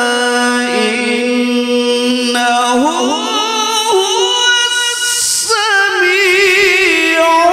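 A male qari reciting the Quran in melodic tilawah style into a microphone: one solo voice holding long notes with wavering ornaments. It holds a low note, slides up to a higher one about a third of the way in, and climbs higher again near the end.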